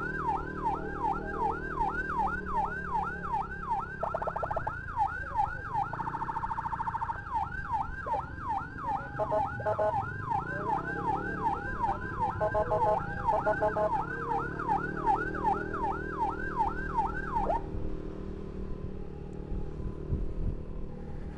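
Electronic emergency-vehicle siren in a fast yelp, about two to three rising sweeps a second. It switches to a faster pulsing tone for a few seconds, goes back to the yelp, and cuts off a few seconds before the end, leaving motorcycle engine and traffic noise.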